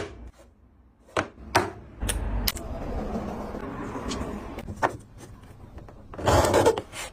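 Wooden pieces of a joint being handled and fitted together: several sharp wooden knocks with rubbing in between, and a louder scrape of wood sliding on wood near the end.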